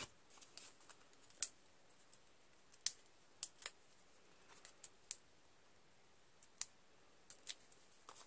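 Faint, irregular small clicks and crinkles of paper handling: foam adhesive dimensionals being peeled from their backing sheet and pressed onto the back of a small cardstock greeting piece.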